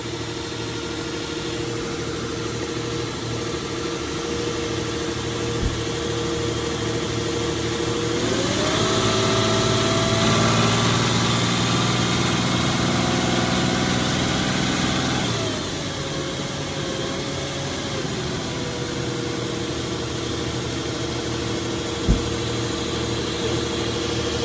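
Nissan engine with about 200,000 miles idling, then revved up about a third of the way in and held at a steady higher speed for about seven seconds before dropping back to idle, a held-rev check on a vacuum gauge for exhaust restriction. Two faint clicks, one early and one near the end.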